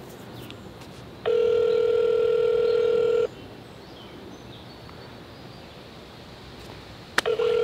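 Telephone ringback tone playing over a phone's speakerphone while an outgoing call rings at the other end. One steady two-second ring comes about a second in, then about four seconds of silence, and the next ring starts near the end, in the two-on, four-off North American cadence.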